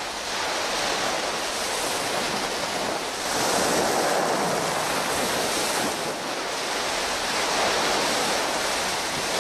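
Heavy surf crashing and washing up a beach, mixed with strong wind; the rush swells louder about three seconds in and again near the end.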